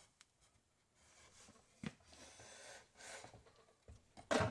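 Handling noises on a metal engine being tilted and moved by hand: a sharp click, a soft scraping rub, then a loud clunk near the end.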